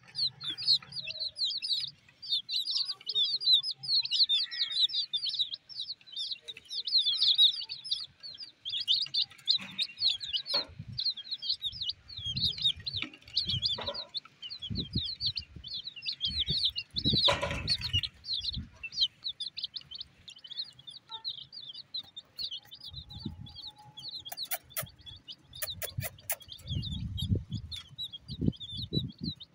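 A flock of young domestic chicks peeping continuously, with many short high chirps overlapping several times a second, thinning a little over the last third. Low thumps and a few sharp clicks come and go, the loudest about 17 seconds in.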